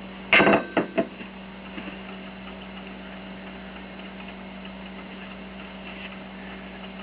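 Stainless steel espresso machine heating up for steam, with a steady low hum and faint ticking. Near the start comes a brief clatter of a few sharp knocks.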